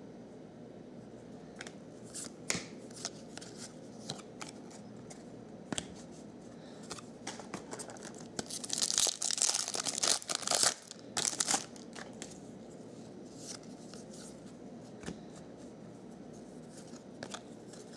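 Foil wrapper of a Bowman Platinum baseball card pack crinkling and tearing open, a dense crackly burst lasting about three seconds around the middle. Scattered soft clicks of trading cards being handled come before and after it.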